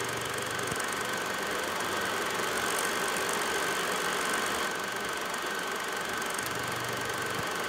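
Film projector running: a steady, fast mechanical clatter with a faint high whine.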